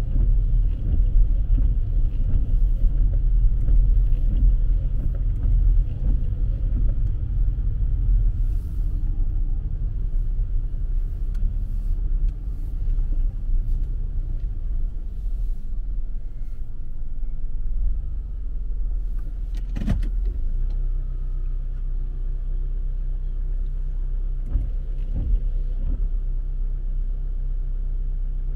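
Car engine and tyre rumble heard from inside the cabin as the car rolls slowly, settling to a steadier, quieter idle about two-thirds of the way through once the car has stopped. A single sharp click sounds soon after.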